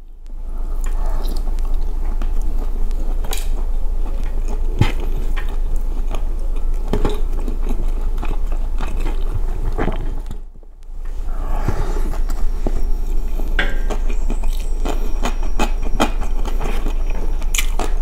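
Close-miked chewing and mouth smacking of a person eating rice and roast chicken by hand, full of small wet clicks, over a steady low hum. All of it drops out briefly about ten seconds in.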